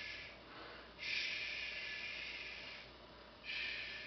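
A person softly shushing to calm a puppy held on its back: long, soft "shhh" sounds, one trailing off at the start and two more beginning about a second in and again near the end.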